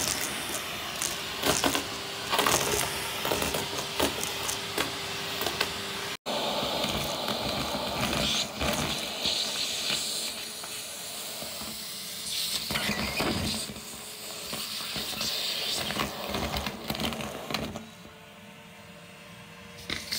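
Vacuum cleaner running with a narrow crevice nozzle over carpet, sucking up foil confetti and shredded tissue paper with frequent crackles and rattles over its steady hiss and hum. It drops out for a moment about six seconds in and runs quieter over the last two seconds.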